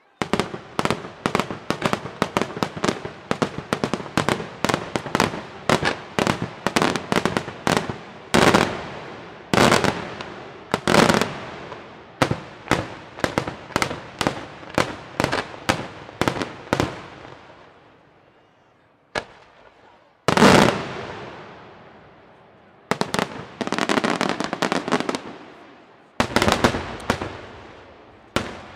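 Daytime fireworks: aerial shells bursting in rapid volleys of sharp bangs, several a second, for over half the time. After a short lull comes one loud blast that fades slowly, then a stretch of dense crackling and a final cluster of bangs near the end.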